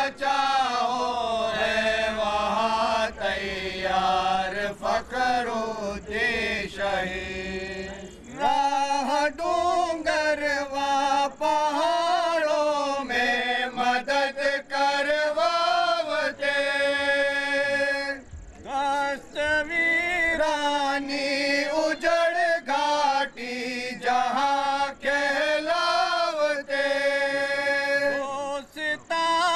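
A group of men chanting a naat, devotional verse in praise of the Prophet, in unison without instruments. Melodic phrases rise and fall onto long held notes, broken by short pauses for breath.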